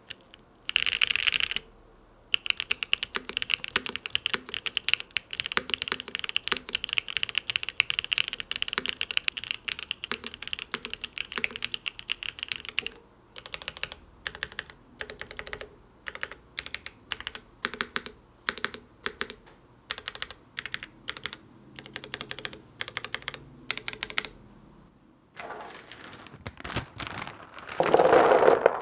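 Typing on a Tech Bear TB8 mechanical keyboard with an aluminium case, gasket mount and FR4 plate. Fast, continuous keystrokes give way to scattered single presses and short runs, with a louder, deeper burst of presses near the end.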